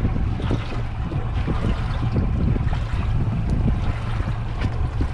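Steady wind and water noise aboard a small fishing boat at sea, a low rumble with wind on the microphone.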